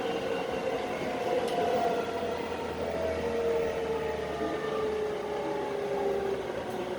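E217 series electric train running, its traction motors giving a whine of several tones that slowly falls in pitch over rail and running noise, as the train slows.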